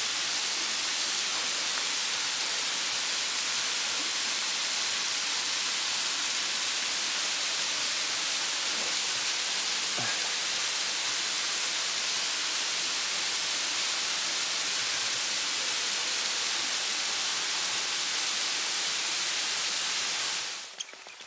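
A waterfall rushing in a steady, unbroken hiss. It cuts off abruptly near the end.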